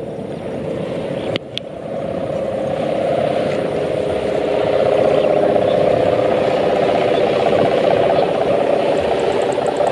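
Sendaren kite hummer with a jointed ori-bamboo bow, droning steadily in the wind as a loud buzzing hum. It swells over the first few seconds and then holds, with a single click about a second and a half in.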